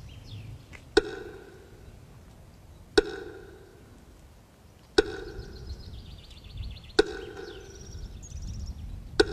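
Slow metronome beats over a loudspeaker, a sharp tick every two seconds with a short ringing tail, marking a minute of silence. Small birds chirp and trill in between.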